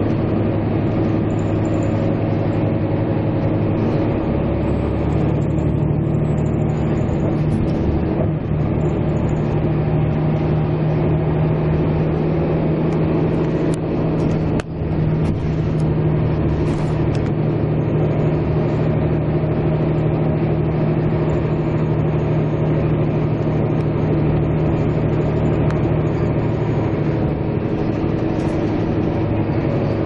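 A moving motor vehicle's engine drones steadily, with a mix of tones and road-like noise. A further steady tone joins about five seconds in and holds until near the end, and there is a brief dip in level about halfway through.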